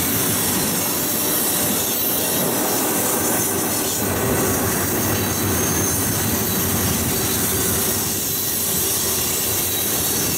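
Loaded ethanol tank cars of a freight train rolling past at about 38 mph, a steady rumble of wheels on rail with a faint high wheel squeal.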